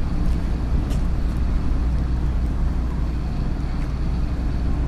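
Steady low drone of a moored ferry's diesel engines running at the berth, even and unbroken, with a faint high whine above it.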